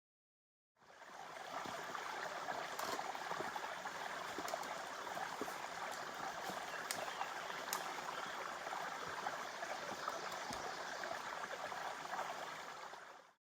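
Water of a small woodland stream flowing and trickling in a steady rush, fading in about a second in and fading out near the end.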